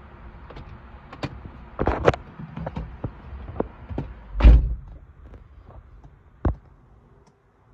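Knocks and clicks from handling a car's body and trim, with one heavy thump a little after the middle, like a car door or trunk lid shutting, and a single sharp knock later on.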